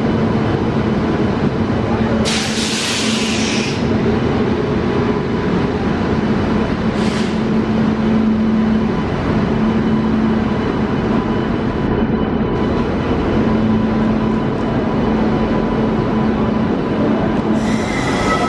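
Express train hauled by a WAP-7 electric locomotive pulling out along the platform: a steady rumble of the coaches rolling past over the rails, with a short hiss about two seconds in.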